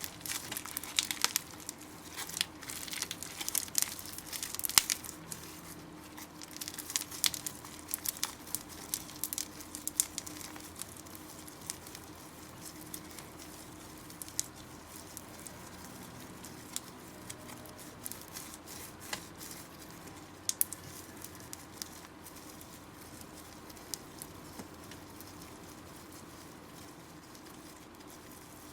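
Slime being squeezed and worked by hand, giving quick wet crackles and small pops, busy for about the first ten seconds and then sparser, over a faint steady hum.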